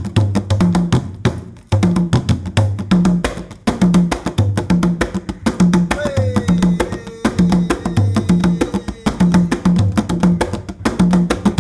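Giriama drum music: fast, dense percussion with sharp wood-block-like clicks over a repeating low pitched drum pattern. The beat drops out briefly twice early on, and a falling, sliding tone sounds about six seconds in.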